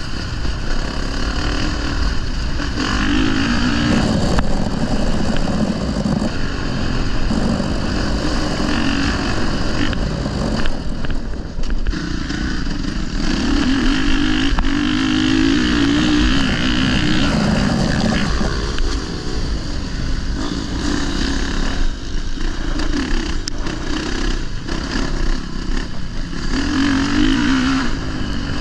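Honda 450 single-cylinder four-stroke motocross bike's engine revving up and down as it is ridden around a track, with wind noise over it.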